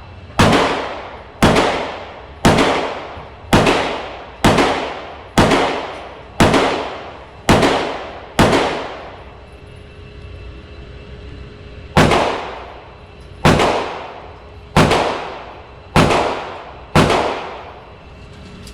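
Glock 19 9mm pistol firing fourteen shots, each with a ringing tail: nine at a steady pace of about one a second, then a pause of a few seconds, then five more.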